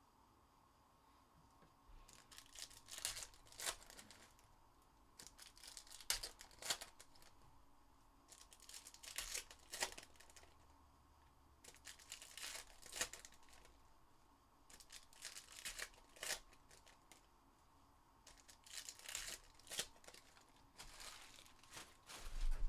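Foil trading-card packs being torn open and crinkled, one after another: about six short bouts of tearing and rustling, roughly every three seconds.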